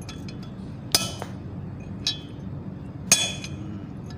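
Hammer striking a steel drift to seat a new tapered roller bearing in a tractor's front steering knuckle: two loud ringing metal blows about two seconds apart, with a lighter tap between them.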